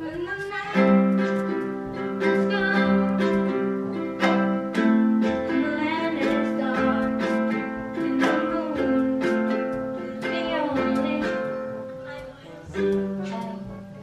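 Ukulele strummed in a series of ringing chords, with a short break about twelve seconds in before the next strum.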